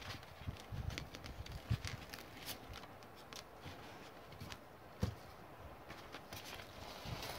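Faint crinkling and rustling of plastic vapour-barrier foil and adhesive tape being handled and pressed down by hand, with scattered light clicks and one knock about five seconds in.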